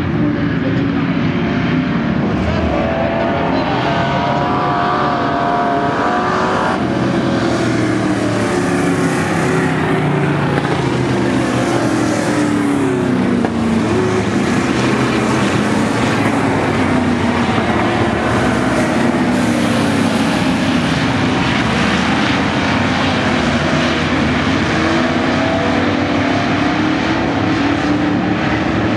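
Several V8 dirt-track stock cars racing around the oval together, their engines running loud and rising and falling in pitch as they go through the turns.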